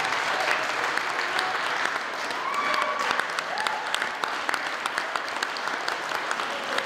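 Audience applauding steadily, dense clapping throughout, with a few brief voices calling out above it.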